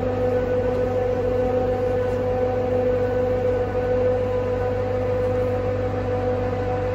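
Tractor-driven feed mixer wagon running steadily while loaded with feed: an even machine hum with a strong steady tone and fainter overtones.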